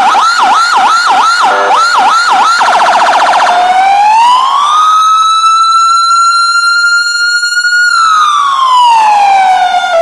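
Big Power 100-watt electronic siren module sounding through a 100-watt siren speaker, switching tones. First a fast repeating yelp, about two sweeps a second. About two and a half seconds in, a brief rapid warble. Then a slow wail that rises, holds high for about three seconds, and falls back down near the end.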